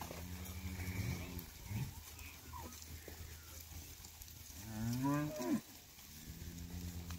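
Holstein-Friesian dairy heifers in a herd mooing: one loud moo that rises and falls about five seconds in, with fainter lowing near the start and the end.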